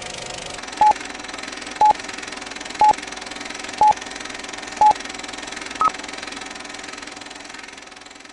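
Film-leader countdown sound effect: five short beeps about a second apart at the same pitch, then a sixth, higher beep, over a steady hiss.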